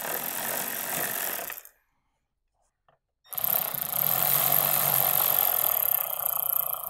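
Cordless power tool running as it tightens a fastener, in two stretches: a short run, a silent break, then a longer steady run about three seconds in.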